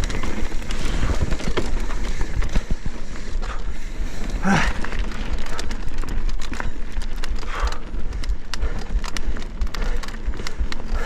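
Mountain bike descending a dirt trail at speed: wind buffeting the camera's microphone, with the tyres running over the ground and the bike rattling and knocking over bumps.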